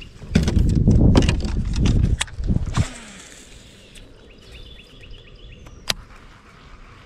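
Fishing rods and gear knocking and rattling against a plastic kayak as a rod is handled in the rod rack, for about two and a half seconds. A single sharp click near six seconds.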